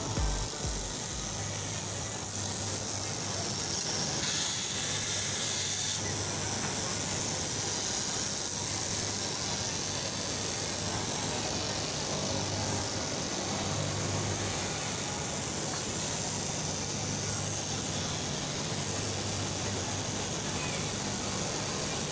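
Electric straight-knife cloth cutting machine running steadily, its vertical reciprocating blade cutting through a thick stack of fabric layers, with a constant low motor hum under a steady hiss.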